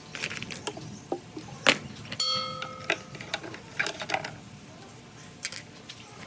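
Hand tools and small metal parts clicking and knocking, with one short metallic ring about two seconds in, during work on a two-stroke power-sprayer engine's fuel and carburetor parts.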